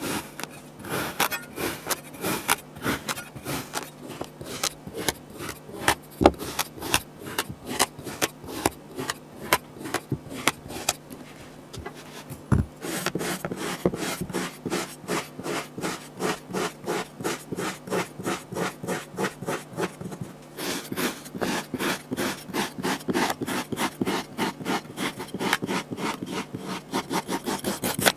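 Kinetic sand being scraped or cut with a tool in quick rhythmic strokes, two or three a second. There is a brief pause a little before the middle and a couple of sharper knocks.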